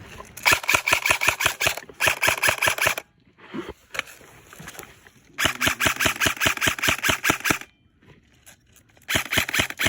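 Airsoft rifle firing on full auto: two bursts of rapid, evenly spaced shots of two to three seconds each, with a third burst starting near the end.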